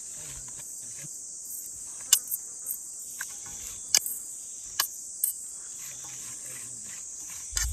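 Steady high-pitched insect chorus, with a few sharp clicks and taps scattered through it.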